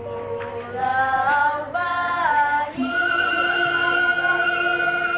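Intro music: a slow melody of high, long notes that step and slide from pitch to pitch, then settle into one long held note about three seconds in.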